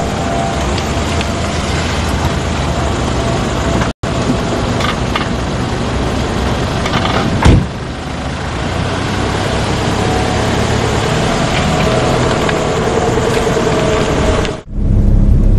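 A car engine running steadily as the sedan pulls up and waits. About seven and a half seconds in there is one loud thump, a car door shutting.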